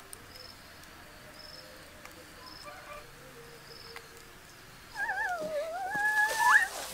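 Faint insect chirping, then about five seconds in a child's loud, long yell that wavers up and down and jumps up in pitch near the end.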